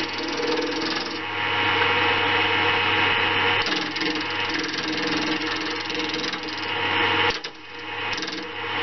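GMC 4-speed wood lathe running with a steady motor hum, while a hand gouge scrapes and cuts a spinning banksia seed pod with a hiss. The sound drops out briefly about three-quarters of the way through.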